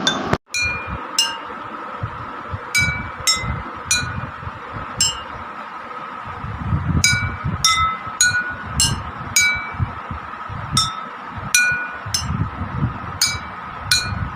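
Glasses holding different amounts of water struck one at a time, each giving a short clear ringing note at its own pitch: a homemade water-glass xylophone, about seventeen notes played in irregular groups.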